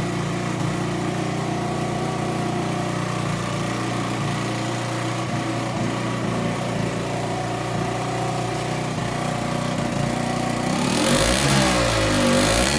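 Aprilia SR50 Purejet's 50cc two-stroke direct-injection Piaggio engine idling steadily, then revved up and down several times near the end.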